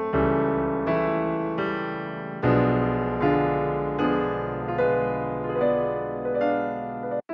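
Background piano music: single notes struck one after another at a slow, gentle pace, each fading away before the next. The music drops out briefly near the end.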